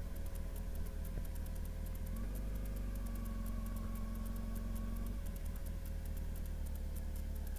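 Honda Hornet 900 motorcycle's inline-four engine running steadily at low revs, with a slight change in its note for a few seconds in the middle.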